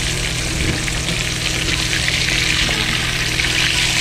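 Seasoned crappie frying in hot grease: a steady sizzling hiss that grows louder toward the end, over a steady low hum.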